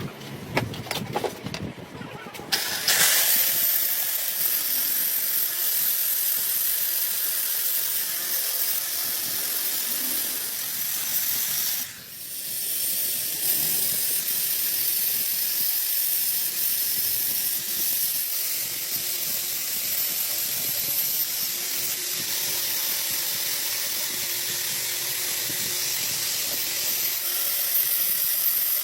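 A few seconds of scattered clicks and knocks, then a steady hiss that cuts out briefly about twelve seconds in and starts again.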